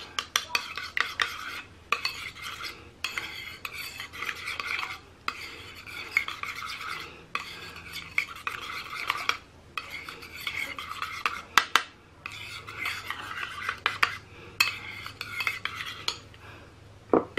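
Metal spoon stirring a thick sauce glaze in a small ceramic bowl, scraping round the bowl in stretches of a second or two with short pauses. A few sharp clinks of the spoon against the bowl about two-thirds of the way in and again at the very end.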